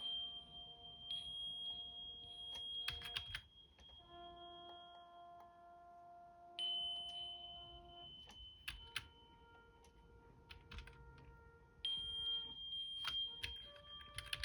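Several simulated smoke alarms sounding one after another. A steady high-pitched electronic tone comes and goes three times, and between its stretches lower-pitched alarm tones with a fuller, buzzier sound take over. Sharp clicks come between the alarms.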